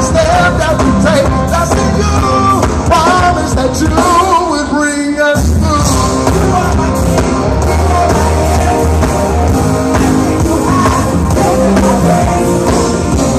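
Gospel choir singing with a full band. About four seconds in, the band drops out for roughly a second under a held, wavering vocal note, then comes back in at full strength.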